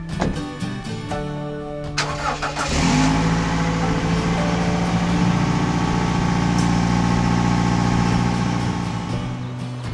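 Toyota HiAce van engine starting about two and a half seconds in, then idling steadily.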